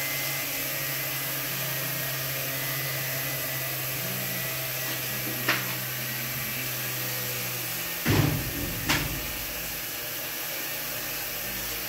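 A steady low machine hum over hiss, with a sharp click about halfway through; the hum stops about eight seconds in, with two knocks close together.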